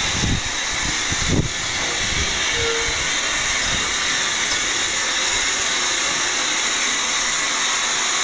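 Furness Railway No. 20 steam locomotive letting off steam in a loud, steady hiss, with two low thumps in the first second and a half.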